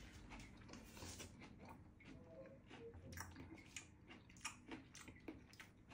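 A person chewing a mouthful of salad with spaghetti: faint, irregular wet mouth clicks.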